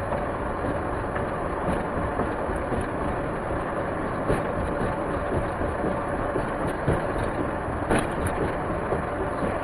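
Steady road and engine noise inside a moving car's cabin, with small irregular knocks from the road.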